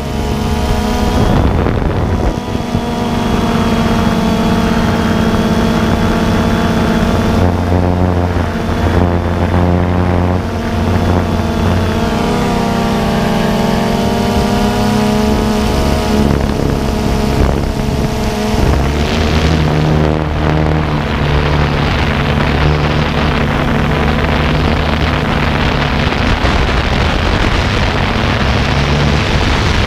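Quadcopter's electric motors and propellers whirring, heard from the camera mounted on the drone itself. Several steady whining tones sit over a low hum, their pitch gliding up and down as the motor speeds change.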